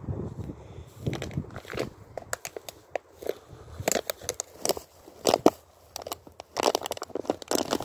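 Footsteps through long grass and dry dead stems: a crackling crunch with each step at an uneven walking pace, with rustling of brushed vegetation.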